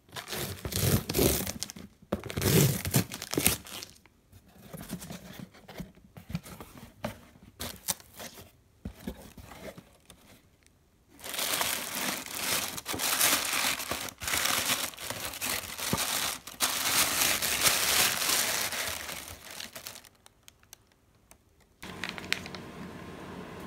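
Honeycomb kraft-paper packing wrap crinkling and tearing as it is handled and pulled out of a cardboard box. It comes in irregular bursts at first, then runs continuous and loudest through the second half, and stops a few seconds before the end.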